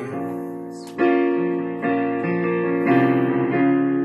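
Piano accompaniment playing sustained chords between sung lines, with a new chord struck about a second in and again at roughly two and three seconds.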